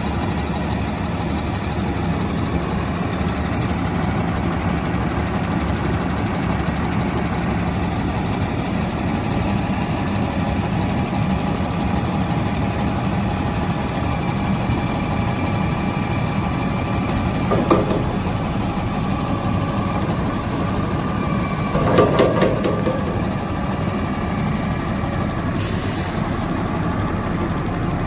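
Front-load garbage truck's diesel engine idling steadily. A sharp knock sounds midway, a few clanks follow about four seconds later, and there is a short hiss near the end.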